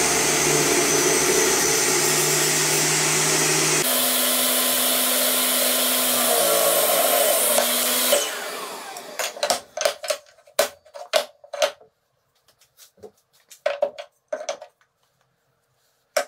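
Makita MLT100 table saw running at full speed, its sound changing abruptly about four seconds in, then switched off and spinning down a little past the middle. After that, a series of short wooden knocks and taps as pieces of the box are handled on the saw table, with one last click near the end.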